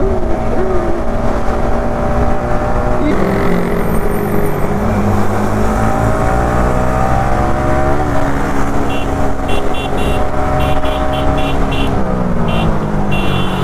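Yamaha R15 V3's single-cylinder engine under way, heard from the rider's seat with wind rush. Its note climbs and drops back with each upshift, about three seconds in and again about eight seconds in, then falls away as the throttle closes. A run of short high beeps sounds in the last few seconds.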